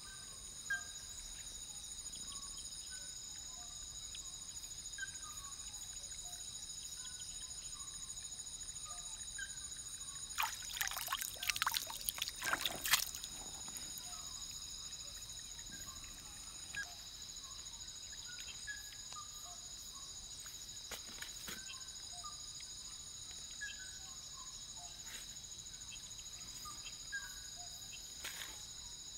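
Night insect chorus in tropical forest: a steady, many-layered high trilling drone, with small chirping calls repeating throughout. A little over ten seconds in comes a short burst of clicks and rustling crackles, the loudest sound here.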